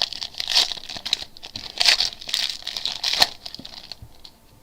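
Trading card packs and cards handled by hand: wrapper crinkling and card rustling with many small clicks, dying down about four seconds in.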